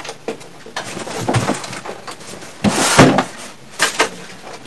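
Plastic clicks, knocks and rattles from a wall-mounted split air conditioner's indoor unit as its drain pan is worked loose by hand, the loudest knock about three seconds in. The clicking of the pan's catches is harmless.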